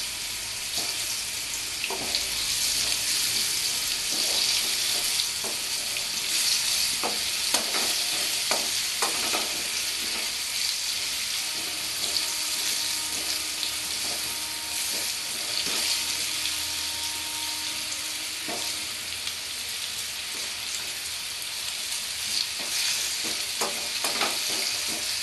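Par-boiled potato chunks sizzling as they fry in mustard oil in a non-stick kadai, with a steady hiss and scattered knocks and scrapes from a wooden spatula stirring them against the pan.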